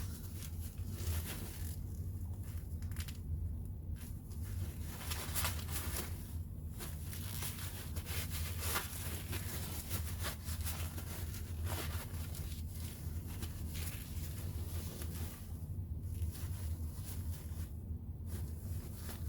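Irregular rustling and rubbing as an oil-covered cordless impact wrench is wiped down by hand, over a steady low hum.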